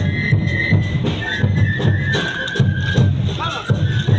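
Andean festival dance music: a steady bass-drum beat with sharp higher hits under a high, held melody line.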